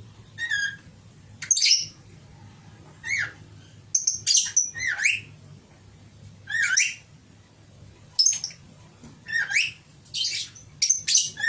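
Lovebird giving short, shrill squawking calls, about a dozen in irregular bursts, each with quick rising and falling pitch. A faint low hum runs underneath.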